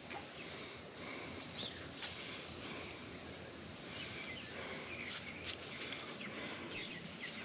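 Quiet outdoor background: a faint steady insect hiss, with a few soft ticks scattered through it.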